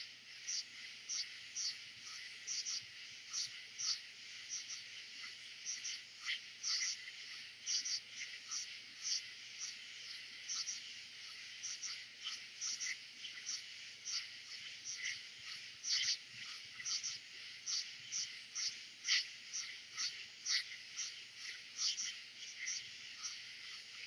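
Night chorus of katydids, crickets and frogs: a dense, steady high-pitched insect drone with short rasping pulses repeating about two or three times a second.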